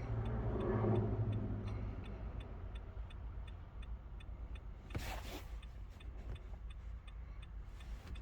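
Hazard-light flasher in a 2016 Nissan Altima clicking steadily, about two to three clicks a second. A low hum fades over the first two seconds, and a short knock comes about five seconds in.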